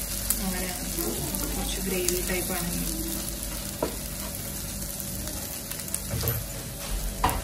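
Squid rings and onion masala sizzling in a non-stick frying pan while being stirred and scraped with a wooden spatula, with a few light clicks of the spatula against the pan. The pan juices are cooking off to make the squid fry dry.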